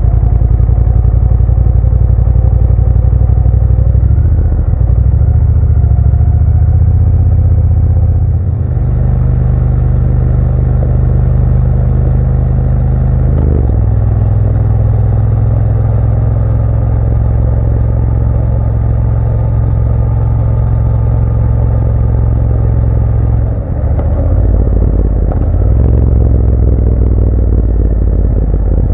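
Motorcycle engine running under way, with its note changing in steps several times and a brief dip near the end. A steady hiss sits over it for much of the middle.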